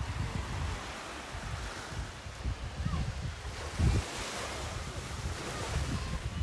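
North Sea surf washing onto the beach as a steady hiss that swells up about four seconds in, with wind gusting on the microphone.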